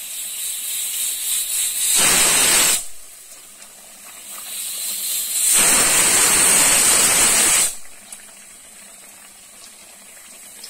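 Batter fritter sizzling as it deep-fries in hot oil, broken by two loud blasts of pressure-cooker whistle: a short one about two seconds in and a longer one of about two seconds around the middle, each starting and stopping abruptly. The whistles are the cooker venting steam at full pressure, the signal cooks count to time the curry inside.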